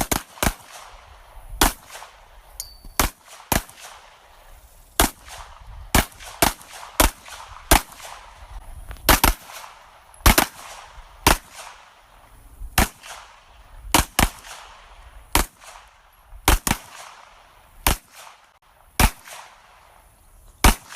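Handgun shots fired one at a time at an uneven pace, about thirty sharp cracks each with a short echo, sometimes two close together.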